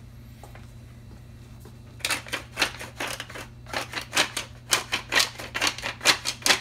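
Hand-twisted wooden grinder mill grinding seasoning onto fish fillets: a run of gritty, crunching grinding strokes, about three a second, starting about two seconds in.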